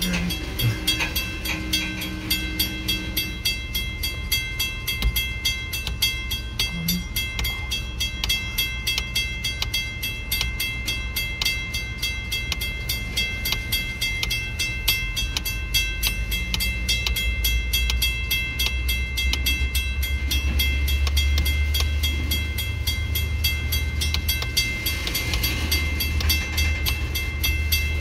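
Freight train of gondola cars rolling across a road crossing: a steady stream of wheel clicks over the rail joints and a low rumble that grows louder about two-thirds of the way through, with a faint steady high-pitched squeal above.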